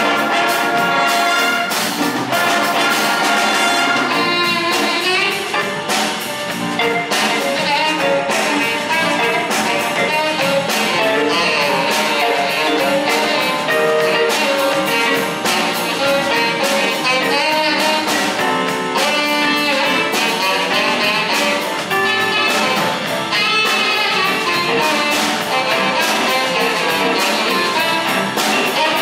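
A jazz big band playing a funk tune live: saxophones, trumpets and trombones in ensemble over a steady drum beat.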